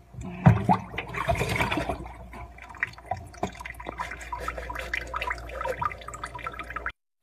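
Kitchen tap running into a sink while a cup is washed by hand, with scattered knocks of the cup and hands, most of them in the first two seconds.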